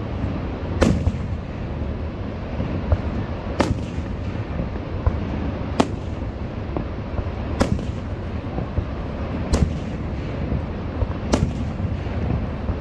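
Aerial fireworks shells bursting overhead: about six loud bangs, roughly one every two seconds, with fainter pops and crackle between them, over a steady low rumble.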